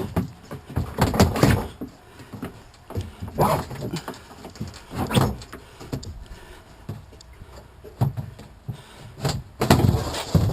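Irregular clunks, knocks and thumps of kayak hull parts being handled and fitted together, with some of the loudest around a second in and near the end.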